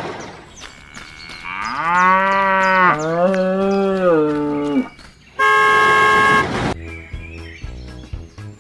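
A cow mooing: one long moo with a short break in the middle, rising at the start and falling away at the end. It is followed by a loud steady horn-like tone lasting about a second, then soft music notes near the end.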